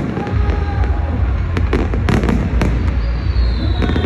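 Fireworks going off: rapid crackling and popping over a steady low rumble, with a falling whistle starting near the end.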